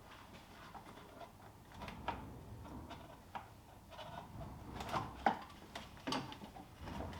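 Irregular clicks and knocks of a socket wrench being worked on the Corsa's oil filter housing cap to get it off.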